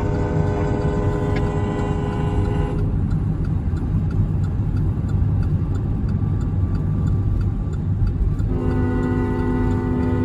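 Diesel freight locomotive air horn sounding a multi-note chord twice: a held blast that ends about three seconds in and another that starts near the end. Throughout, a heavy train rumbles by with faint, evenly spaced ticks.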